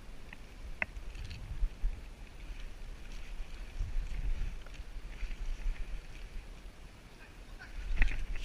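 Irregular rustling and dull low thumps of a person moving through undergrowth, with a few short sharp clicks.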